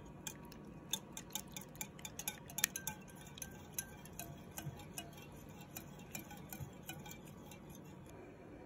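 Metal wire whisk beating eggs in a glass bowl, its wires clinking lightly and irregularly against the bowl's side. The ticks come thick and fast in the first few seconds, then thin out toward the end.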